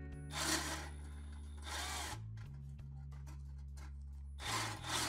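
Three short, harsh bursts of tool noise, about half a second each, as the screw of a stainless band clamp is driven tight around a loose catalytic-converter heat shield, over steady background music.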